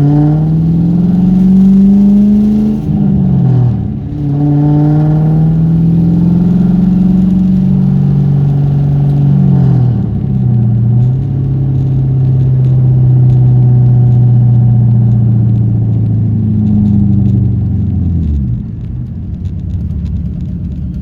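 1998 Mustang Cobra's 4.6-litre DOHC V8 accelerating through the gears. Its pitch rises, drops at shifts about 3 and 10 seconds in, holds steady at cruise, then falls away near the end. The run is meant to catch a rattle the owner hears at 2,000 to 3,000 rpm and thinks sounds like the valve train or the block.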